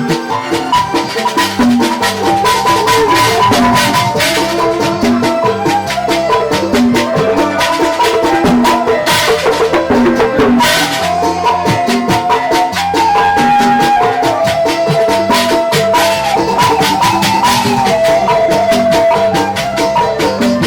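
Band music played through a sound system for a sound check, without added effects: a steady rhythm of drums and shaken percussion under a stepping melody line.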